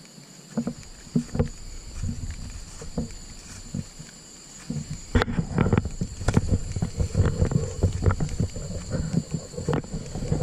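Footsteps and swishing of grass and brush as people walk through tall vegetation, sparse at first and becoming denser and louder about five seconds in, with one sharp click near the middle. A steady high thin tone sounds underneath throughout.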